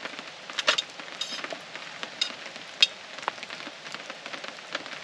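Steady rain pattering, with scattered sharp ticks and one louder snap a little under three seconds in.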